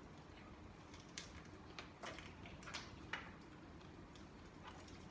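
Faint sounds of people eating fried chicken: a handful of short, sharp chewing clicks at irregular moments over a quiet room.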